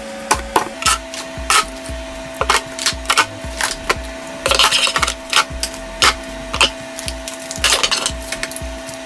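Background music with a steady beat and held notes, with light clicks and clatter throughout.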